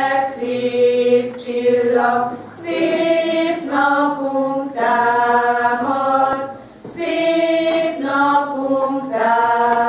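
Women's folk song choir singing a slow Christmas song, holding long notes in phrases with short breaks between them.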